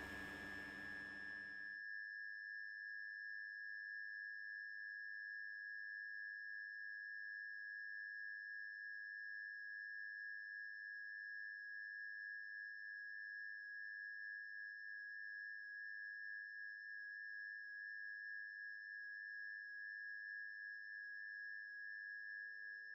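A steady, high, pure sustained tone with a fainter higher tone above it, a drone with no rhythm or change in pitch. A hiss cuts off suddenly about two seconds in, and faint lower tones come in near the end.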